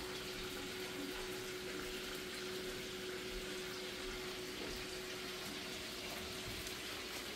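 Steady faint hiss with a low steady hum underneath: kitchen background noise.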